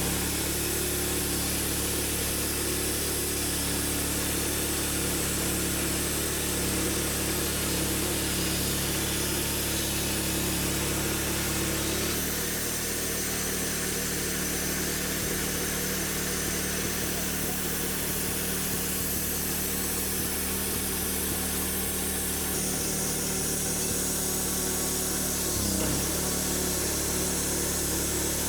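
A sawmill running steadily while cutting an oak log. Its engine tone shifts about twelve seconds in and dips briefly near the end.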